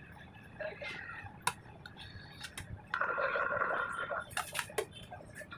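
A metal cake scraper smoothing icing against the side of a cake on a spinning turntable: a scraping sound for about a second and a half, starting about three seconds in, among scattered light clicks and taps of metal tools.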